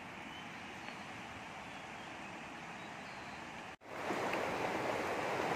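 Fast river water rushing steadily. After a cut about four seconds in, the rushing becomes much louder.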